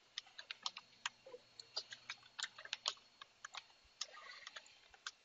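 Computer keyboard typing: a run of quick, irregular key clicks as a username and password are entered.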